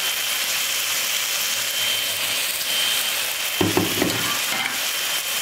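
Oil sizzling steadily in a karahi as tomatoes, browned onions and freshly added whole spices (bay leaves, cloves, cardamom) fry in it.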